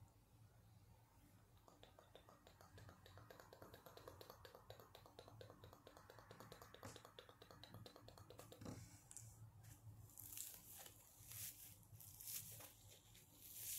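ASMR scratching on a kitchen sponge, close to the microphone: first a fast, even run of light scratchy ticks, then from about ten seconds in a series of louder, sharper strokes over its rough scouring side.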